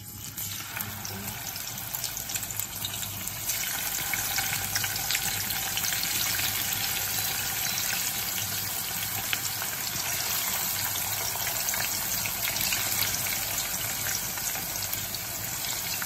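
Chicken wings frying in shallow hot oil in a frying pan: a steady sizzle with scattered pops and crackles. It starts as the first wing goes in and grows louder about three and a half seconds in as more wings are added.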